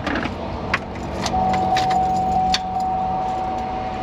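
Keys jangling and clicking as a key is turned in a newly fitted ignition switch, with a sharp click now and then. A steady single-pitched tone starts about a second in and holds.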